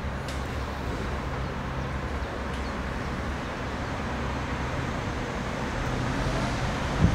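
Red DB regional diesel multiple unit approaching slowly, its underfloor diesel engines running with a steady low drone. A gust of wind buffets the microphone near the end.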